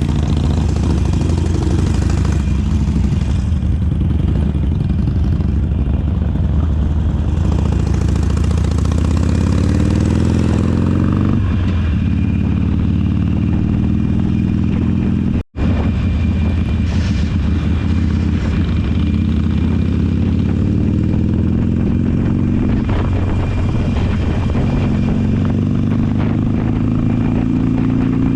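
Harley-Davidson motorcycle engine running while riding, its pitch climbing and dropping again several times as the bike accelerates through the gears. The sound cuts out for an instant about halfway through.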